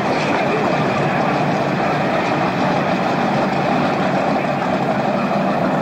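Racing powerboat's engine running steadily, an even rumble with no change in pace.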